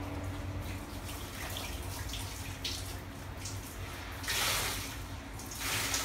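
Hands fitting small parts onto a homemade model truck chassis: soft scraping and rustling noises in short bursts, the two loudest near the end, over a low steady hum.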